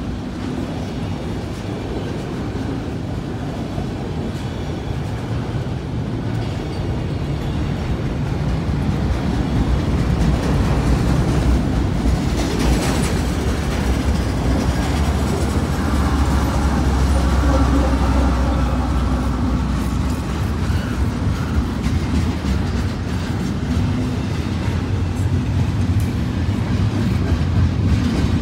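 Freight train of autorack and double-stack intermodal cars rolling steadily past a grade crossing. The rumble grows louder and deeper toward the middle, with a short sharp clank near the middle.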